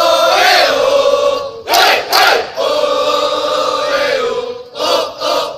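A group of students singing in unison, holding long notes of a group cheer. About two seconds in, two short loud shouts break in, and there are more shouted bursts near the end.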